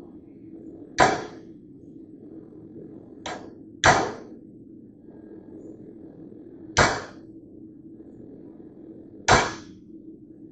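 Hammer blows on metal, struck singly a couple of seconds apart: five strikes, the second one lighter, each with a short ring. A steady low hum runs underneath.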